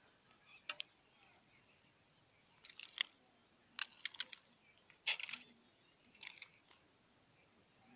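Hand-operated lever press with wooden handles and a metal cylinder extruding dough into strands: faint, short clicks and creaks from the press, coming in small clusters every second or so.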